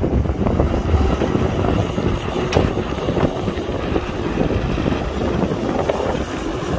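Excavator loading dirt into a dump truck: a diesel engine runs steadily under scattered knocks and clanks, with one sharper clank about two and a half seconds in.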